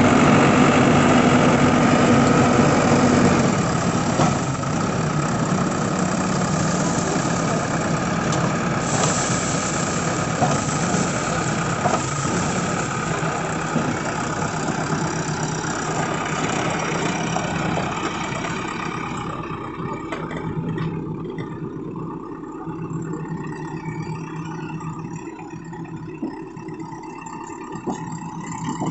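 JCB 3DX backhoe loader's diesel engine running, loudest for the first few seconds, then easing to a lower, steady level that falls off further in the last third, with a few sharp knocks along the way.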